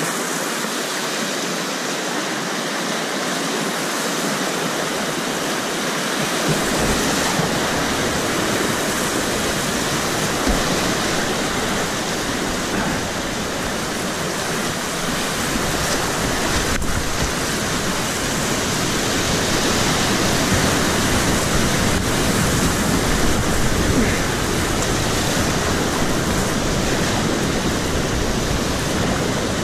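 Whitewater rapids rushing steadily around a kayak, close to the water. A deeper low buffeting rumble joins about six seconds in.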